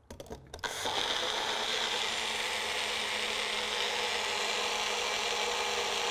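Magic Bullet personal blender running steadily, blending a cup of coffee with butter, ghee and cream. A few clicks as the cup is seated and pressed onto the motor base, then the motor starts about a second in.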